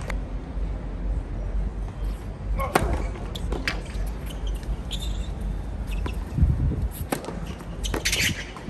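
Tennis ball struck by rackets and bouncing on a hard court: several sharp pops a second or more apart, over the murmur of spectators.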